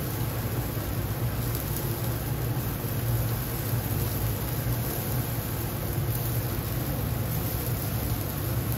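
Steady low hum with an even hiss over it: the running noise of a commercial gas-fired charcoal grill in use.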